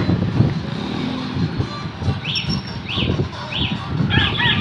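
Motorcycle and motorcycle-tricycle traffic on a street, a steady low engine rumble. From about halfway, short high chirps come in, a few at first, then in a fast run near the end.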